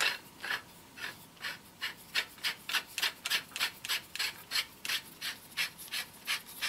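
Barrel of an Ares Striker airsoft sniper rifle being screwed by hand into its receiver, making a short rasping rub with each twist, about three a second.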